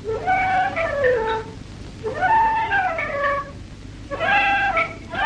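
Stylized film-score sound effect for dialling a rotary telephone: a pitched, instrument-like tone swoops up and slides back down, four times in a row, once per turn of the dial.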